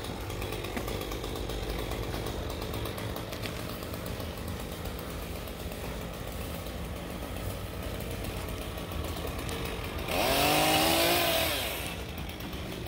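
A small motorized power tool, such as a chainsaw, running steadily at a distance; about ten seconds in it revs up louder for a couple of seconds, then drops back.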